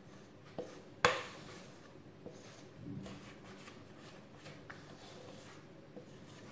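Thick chocolate sponge batter being poured from a metal mixing bowl into a springform cake pan: soft handling sounds, with one sharp knock about a second in and a few fainter clicks.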